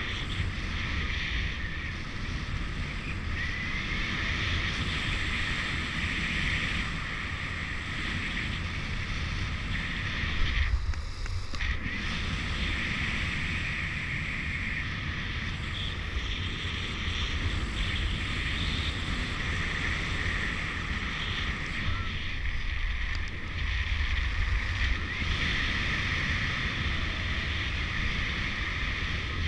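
Steady rush of wind over the microphone of a paraglider pilot in flight, with a low buffeting rumble under a hiss. The hiss drops away briefly about eleven seconds in.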